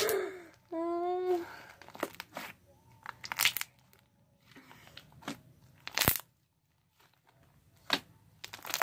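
A large mass of green slime with small beads mixed through it being squeezed and pulled by hand, giving scattered pops and crackles, the loudest about six seconds in. A short vocal sound comes about a second in.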